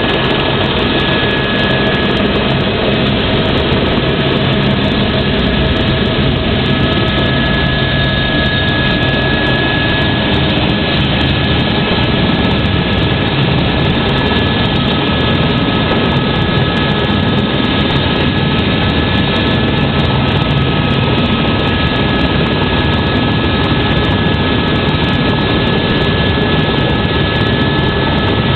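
Helicopter engine and rotor running steadily, heard inside the cabin: a dense, constant noise with a steady high-pitched whine over it.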